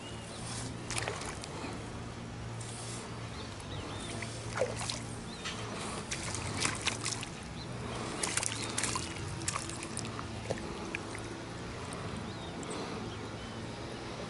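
Small splashes and water sloshing as a hooked yellow mojarra thrashes at the surface on a fly line. The splashes come thickest in the middle, over a faint steady low hum.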